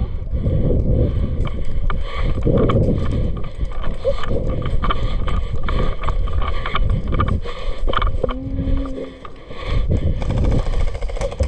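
Wind buffeting the camera microphone in a heavy low rumble, with scattered clicks and knocks of movement and handling.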